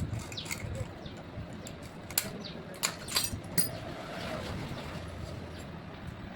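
Small birds chirping over a low background rumble, with a few sharp clicks near the middle.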